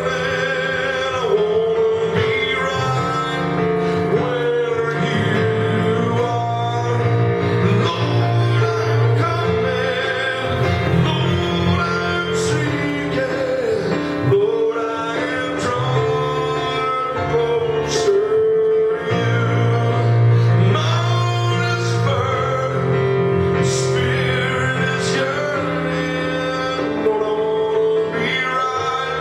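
Slow worship music from a recorded backing track, with a sustained melody line and singing over steady chords.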